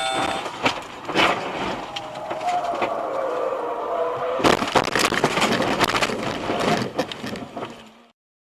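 Car crash heard through a dashcam: crashing and scraping, a drawn-out squeal falling in pitch, a second heavy impact about four and a half seconds in, then clattering and rattling that cuts off abruptly about eight seconds in.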